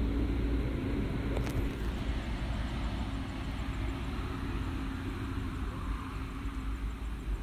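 Steady low rumble and hiss of background noise with a faint steady hum, and a brief click about one and a half seconds in.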